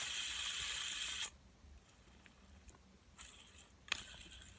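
A fidget spinner whirring steadily as it spins, stopped suddenly about a second in, then a single click later on.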